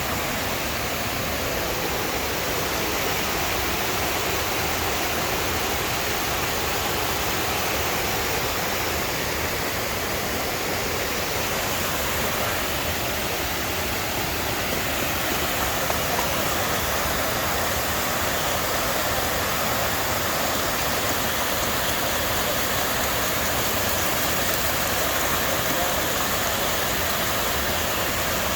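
Rushing river water, a steady even roar of falling or flowing water.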